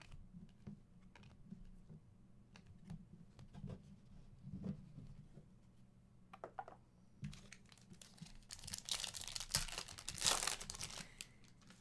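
Foil wrapper of a Panini Prizm hobby pack crinkling and tearing open in the second half, after a few faint clicks from cards being handled.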